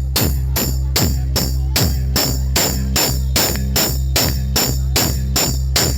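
DJ music played loud: a sharp, tambourine-like percussion hit repeating about two and a half times a second over a heavy, steady bass drone.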